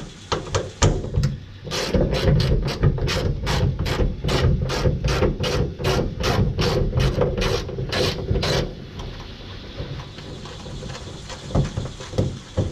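Hand ratchet backing out a bolt, clicking in a steady run of about three clicks a second that stops about nine seconds in, with a few scattered clicks and taps before it.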